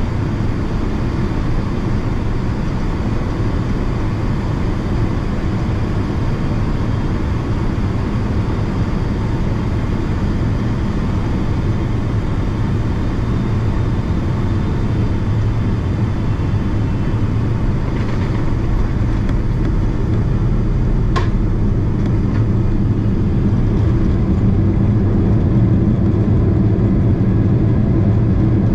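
Cabin noise of a Boeing 777-300ER landing, heard by the window: a steady low rumble of GE90 engines and rushing air, a brief knock about three quarters of the way through, then the rumble grows louder as the jet rolls out on the runway.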